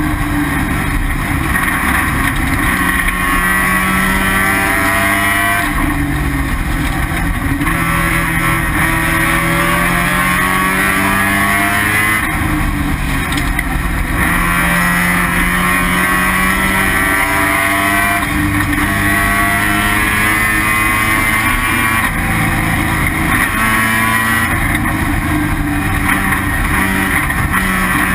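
Mazda RX-7's rotary engine running hard at racing speed, its note rising steadily under acceleration and falling back several times as the car slows for corners, over constant road and wind noise.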